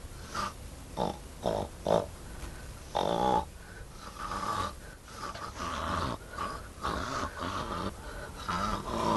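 A person imitating snoring with the mouth and throat: a few short snorts, then longer, ragged drawn-out snores.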